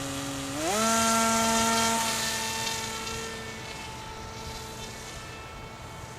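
Remote-control airplane's small motor and propeller buzzing, throttled up with a quick rising whine about a second in, then holding a higher steady pitch and fading as the plane flies away.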